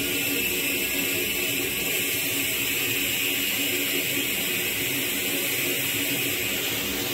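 Experimental electronic noise improvised in the frakMSP suite: a dense, steady wash of noise, brightest in the upper range, over a low pulse repeating in a steady rhythm.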